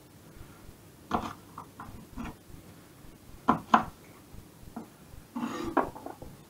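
Chef's knife chopping green beans on a wooden chopping board: irregular sharp knocks of the blade on the board. Near the end comes a brief scrape as trimmings are swept off the board into a plastic tub.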